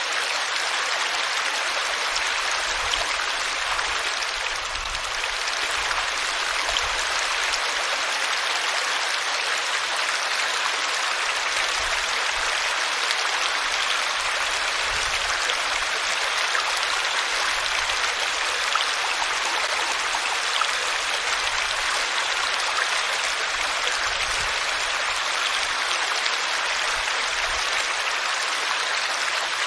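Water flowing in a stream: a steady, even rush of running water.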